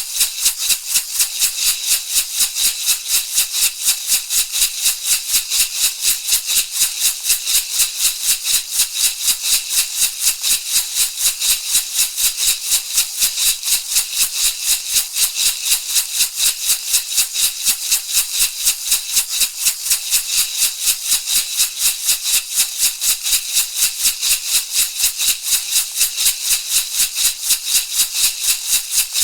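Shamanic hand rattle shaken in a steady, even rhythm of about four shakes a second, a dry bright rattling of seeds or beads.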